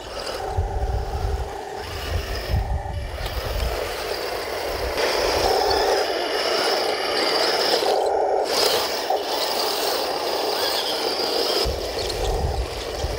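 Taigen M41 Walker Bulldog radio-controlled tank driving over rough dirt: its electric drive motors and gearboxes whine steadily while its tracks rattle and scrape. It grows louder about five seconds in.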